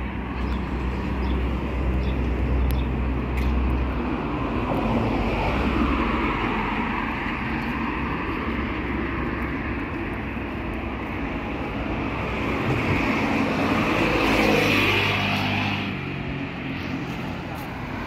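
Street traffic: cars driving along a city street. One passes close and is loudest about fourteen to fifteen seconds in.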